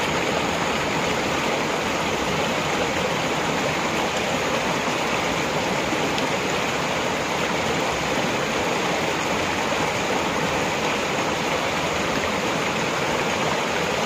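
Shallow rocky stream rushing over stones, a steady, unbroken wash of flowing water.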